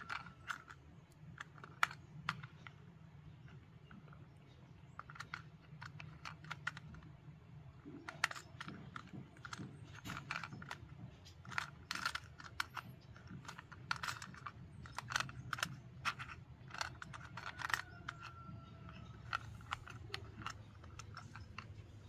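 Light clicks and taps at an irregular pace from a toy car being handled, over a low steady hum.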